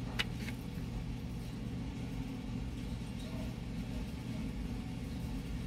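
A Honda Civic's engine idling, a steady low hum, with a single sharp click just after the start.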